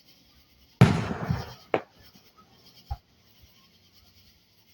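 Fireworks going off: a loud boom about a second in that rumbles and fades, followed by two sharper, shorter pops.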